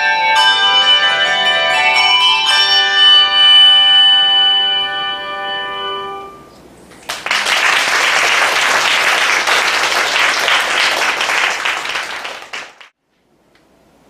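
A handbell choir ringing a last chord, struck about two and a half seconds in, that rings on and dies away. Audience applause follows from about seven seconds in and cuts off suddenly near the end.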